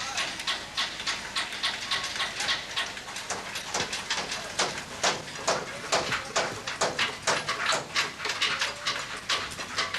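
Hammering by many workers at once: sharp, overlapping knocks at an irregular pace of several a second.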